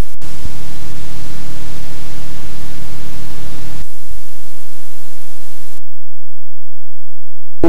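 Loud, even hiss of static from a blank stretch of analogue videotape between recordings, with a steady low hum under it for the first few seconds. About six seconds in the hiss cuts out abruptly, leaving only a faint high whine.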